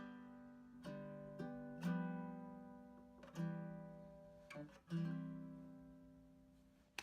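Baritone ukulele strumming the closing chords of a song. There are several strums, and the last one, about five seconds in, rings out and fades away.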